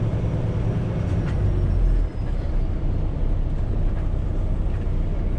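Semi truck's diesel engine running steadily as the truck drives, a low rumble with a brief dip about two seconds in.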